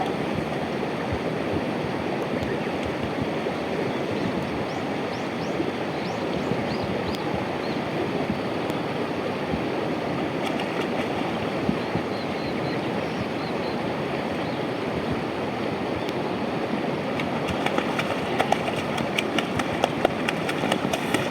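Mountain river water rushing steadily over rocks, with a run of sharp clicks near the end.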